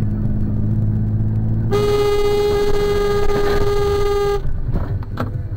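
A car horn sounds in one steady held blast of nearly three seconds, starting about two seconds in and cutting off abruptly, over the steady drone of a car driving, heard from inside the moving car.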